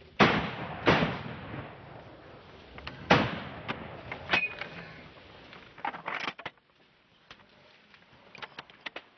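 Large-calibre hunting rifle shots at a charging elephant: two loud shots in quick succession at the very start, another about three seconds in and a weaker one soon after, each echoing away. A cluster of sharp knocks and lighter clicks follows in the second half.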